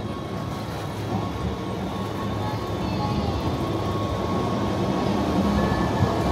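Wengernalpbahn rack-railway train running, a steady rumble with a faint steady hum above it, growing gradually louder.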